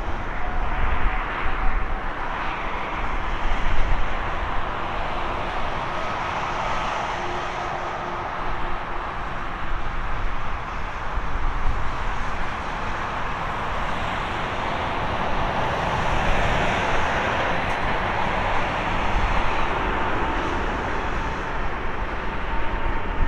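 Jet engine noise from a Boeing 747-8F's four GEnx-2B turbofans: a steady, broad rush with faint whining tones, holding an even level throughout.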